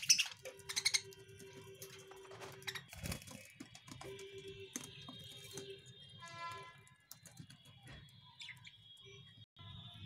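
Budgerigars chirping and chattering, loudest in the first second, with a warbling call about six seconds in, over a low steady hum.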